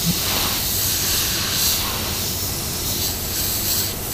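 Dental three-way air syringe blowing a steady hiss of compressed air over a tooth. The air spreads and thins the freshly applied bonding agent before it is light-cured.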